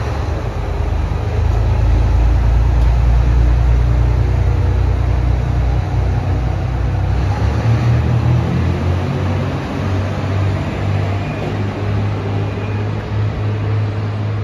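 ET122 diesel railcar pulling out, its diesel engine working hard with a loud, low throbbing drone that is loudest a few seconds in and then slowly eases as the railcar draws away.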